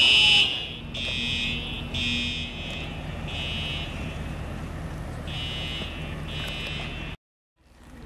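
School fire alarm sounding during a test: a high-pitched horn in repeated half-second blasts about once a second, with a pause of about two seconds midway.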